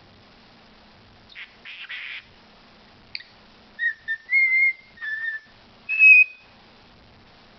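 Pet talking bird whistling a string of short, clear notes, a few of them gliding, with the highest and loudest note near the end. A brief raspy call comes before the whistles.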